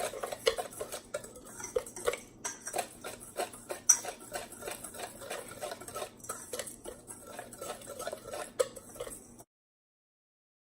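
A spoon stirring seasonings in a bowl: quick, irregular clicks and scrapes of the spoon against the bowl, cutting off near the end.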